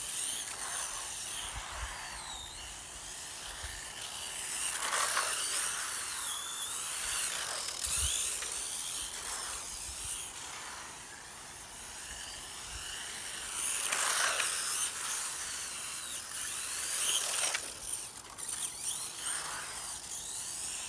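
Electric RC car's motor and gearbox whining as it is driven hard, the whine sweeping up and down in pitch as the throttle is punched and released, swelling loudest several times as the car passes.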